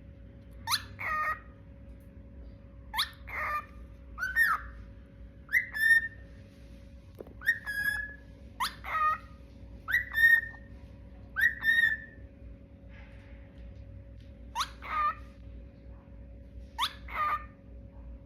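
A bird calling over and over: about ten short, whistle-like calls, each a quick upward sweep into a brief held note, one every second or two, with a pause of a couple of seconds past the middle. A faint steady hum runs underneath.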